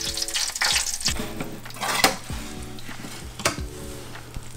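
Fat and juices sizzling and crackling on a reverse-seared wagyu chuck roast fresh out of a 500°F oven, with sharp pops about two seconds in and again about three and a half seconds in.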